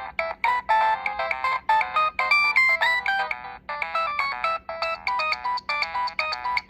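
Built-in gallery ringtone playing on a Nokia 6016i mobile phone: a quick synthesized melody of short, high notes with several sounding at once. There is a brief break about halfway through.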